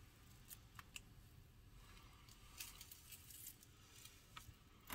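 Near silence, with a few faint, brief ticks and rustles of hands moving over a diamond painting canvas.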